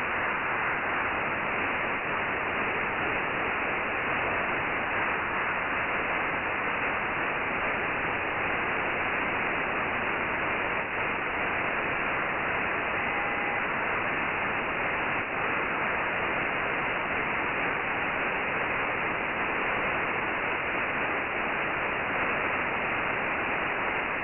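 Demodulated audio from a software-defined radio receiver tuned to the Nayif-1 (EO-88) 2 m downlink: a steady hiss of band noise and static, with a brief faint whistle about 13 seconds in.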